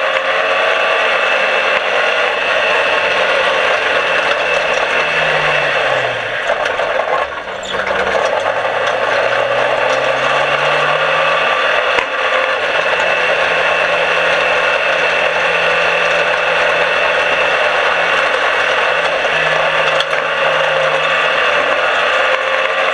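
Small dirt-track race car's engine heard from inside the cockpit under a loud, steady rattle and track noise. The engine note falls about six seconds in as the car eases off, then climbs again over the next few seconds as it accelerates, with a shorter dip again near the end.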